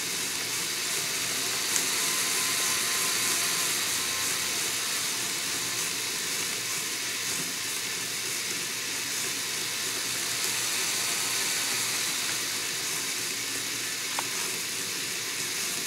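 Two LEGO XL motors driving a LEGO Technic differential at full speed: a steady, hissy whir of plastic gears meshing, with a couple of sharp clicks.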